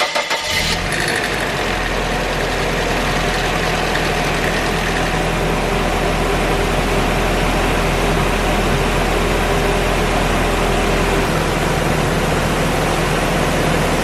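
Nissan 240SX's four-cylinder engine idling steadily, just after being started and settling within the first second or so. It is running after a fix for timing-chain rattle, with the top chain guide removed and the tensioner cleaned.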